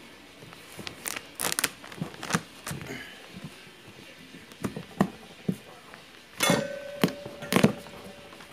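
Large kitchen knife being forced through the hard rind of a big green pumpkin under body weight: a series of irregular cracks and crunching knocks, loudest about a second in and twice more near the end.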